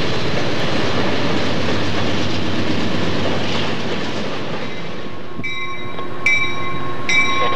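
Freight train of hopper cars rolling past with steady wheel and rail noise. About five and a half seconds in it gives way to a locomotive bell ringing, three strokes less than a second apart.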